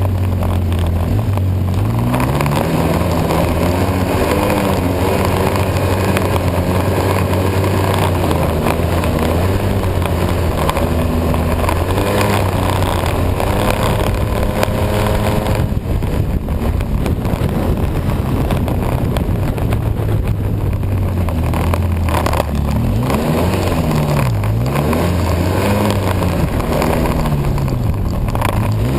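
A vehicle engine running continuously under load while being ridden, its pitch repeatedly climbing and dropping with the throttle, with two quick dips and recoveries near the end.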